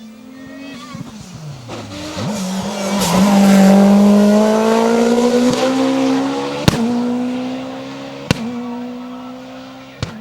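Lancia Delta S4 Group B rally car's twin-charged four-cylinder engine at full throttle. It revs through gear changes, swells to a loud pass with the engine note climbing steadily, then fades away up the hill. Two sharp cracks come during the fade, and one more near the end.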